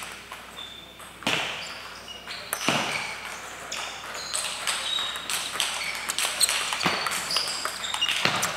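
Table tennis balls clicking off bats and tables in irregular pings, ringing on in a large hall.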